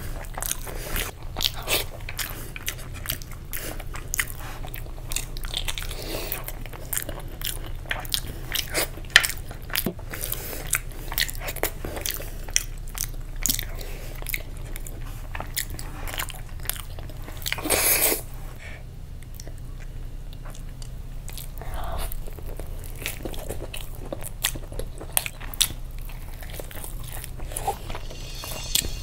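Close-miked eating sounds: wet chewing and lip smacking as a person eats curried mutton and rice by hand, with many small sharp mouth clicks. Just past the middle there is one longer, louder noisy sound.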